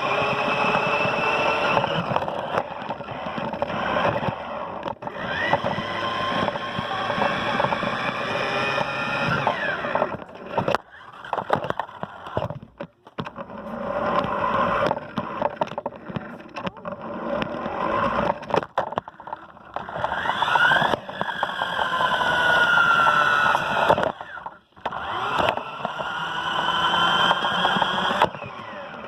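Small electric motor of a toy RC car whining, its pitch rising and falling over and over as it speeds up and slows down, with a few short breaks.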